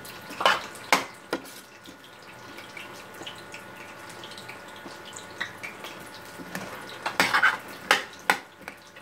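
A metal spoon stirring vegetables in a stainless steel pot, scraping and knocking against the pot a few times near the start and again near the end. Between the strokes the vegetables sizzle faintly over the flame.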